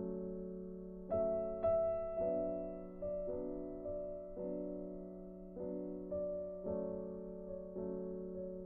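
Background music: soft, slow piano chords, a new chord or note struck about once a second and left to fade.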